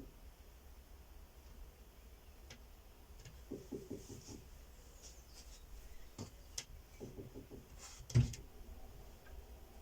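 Quiet room tone with a few faint clicks and soft low knocks, and one short, louder thump about eight seconds in.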